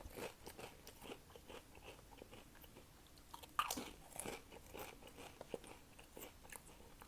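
Close-up chewing of crunchy snack chips: faint, irregular crunches with one louder bite about three and a half seconds in.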